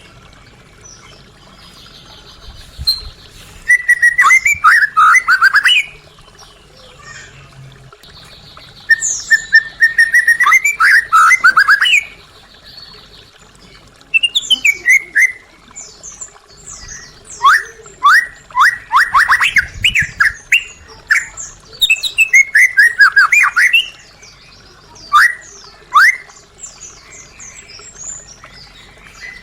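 White-rumped shama singing: loud phrases of rapid, sharply falling whistled notes, each a few seconds long with short pauses between, and a buzzy rattling trill in two of the phrases.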